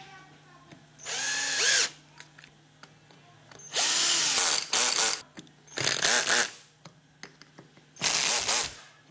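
Electric screwdriver driving small screws into a small metal mechanism: four short runs about a second in, near the middle, and near the end, the motor's pitch rising and falling in each, the second run the longest.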